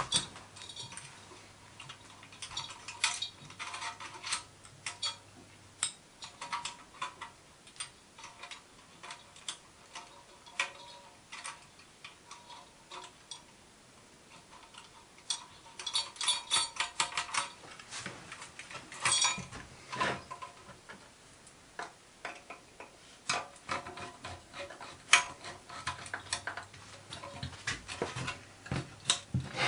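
Scattered light metallic clicks and clinks of small brass fittings being handled and tightened on a model steam boiler, coming in short clusters.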